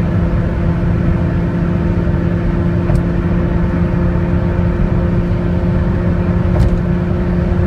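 Toyota Vios's 2NR 1.5-litre four-cylinder engine with an aftermarket exhaust, held at steady high revs near top speed (about 200 km/h), heard from inside the cabin. A constant engine hum with steady overtones sits over heavy road and wind noise.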